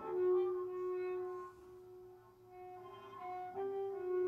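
Slow instrumental music of long held notes, dropping away about a second and a half in and swelling again near the end.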